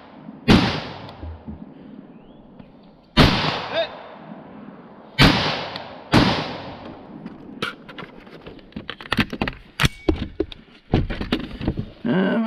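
M4-clone rifle firing four shots, spaced one to two and a half seconds apart, each with a ringing tail. In the second half, a run of lighter sharp clicks and knocks.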